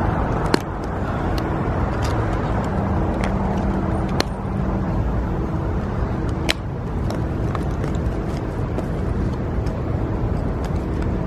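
Steady road traffic rumble, with three sharp clicks about half a second, four seconds and six and a half seconds in.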